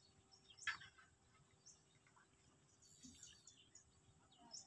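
Near silence with a few faint, short bird chirps, the clearest about a second in.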